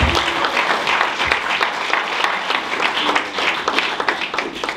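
Audience applauding, a dense patter of many hands clapping that starts to fade near the end.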